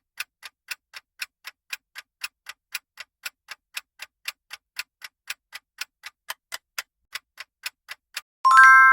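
Countdown clock sound effect ticking steadily, about four ticks a second. Near the end a loud chime of several held tones rings out, marking the end of the countdown.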